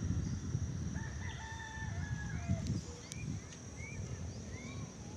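A rooster crowing once: one long held call that drops in pitch at the end, followed by a few short rising bird chirps, over a steady low rumble.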